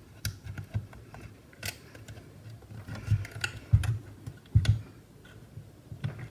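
Scattered light clicks and a few duller knocks from parts being handled while the 2014 Mac Mini's internal power supply is worked loose.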